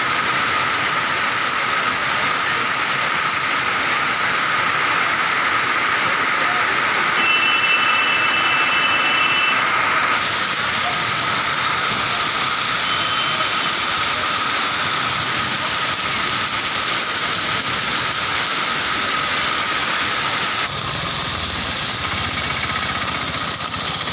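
Heavy monsoon rain pouring onto a paved street, a steady loud hiss. A low rumble joins it near the end.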